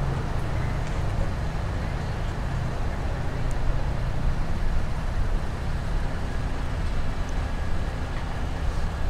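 Steady low rumble of motor vehicle traffic, an engine running without a break.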